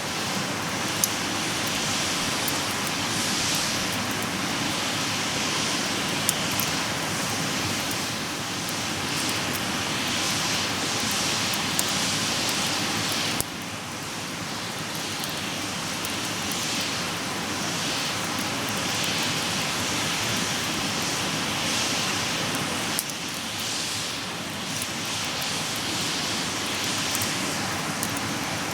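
A wood campfire burning with a steady hiss and occasional sharp pops from the burning wood.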